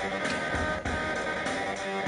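Recorded music played back over the PA: a cover version of film-music themes with drums, with a steady beat and sustained pitched parts.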